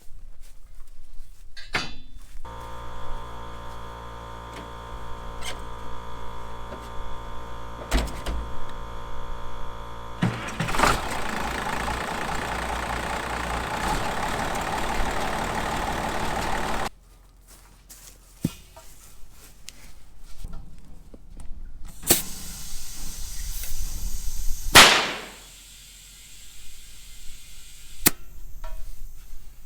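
An engine running steadily, starting about two seconds in and turning louder and rougher from about ten seconds, then cutting off suddenly; after it come scattered knocks and a loud, brief rushing sound near the end.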